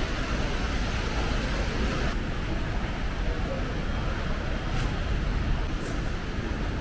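Steady low rumble and hiss of a large airport terminal hall's background noise.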